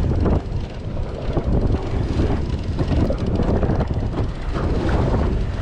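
Wind buffeting the microphone out on open water, a heavy uneven rumble with no break.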